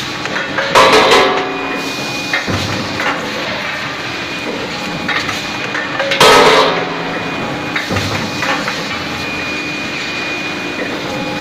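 Hot nut forging machine running, with a steady mechanical hum and two loud forging strokes, one about a second in and one about six seconds in.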